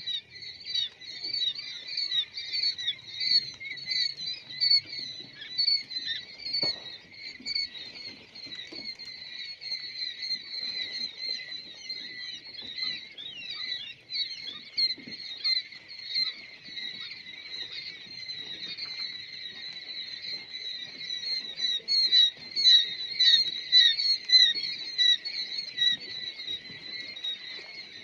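Dense chorus of many young chicks peeping without a break, growing louder about three-quarters of the way through.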